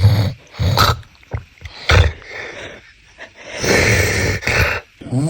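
A man snoring: three short snorts in the first two seconds, then a longer, louder snore about three and a half seconds in.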